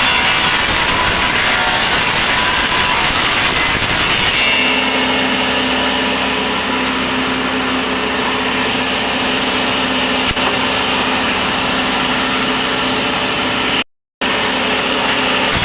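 Timber-splitting saw machine running loudly and steadily. About four seconds in the sound changes abruptly: the hiss thins and a steady motor hum comes through. It cuts out for a moment near the end.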